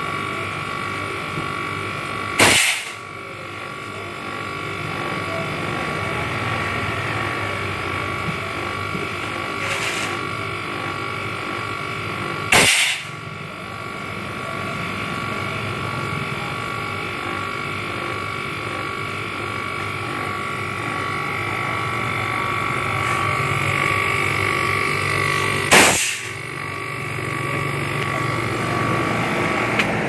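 A cleaning wand, driven by a machine that runs steadily with a high whine, is worked over the back of a refrigerator to clean its hot-side coil (condenser). Three loud, short blasts stand out: a few seconds in, about midway, and near the end.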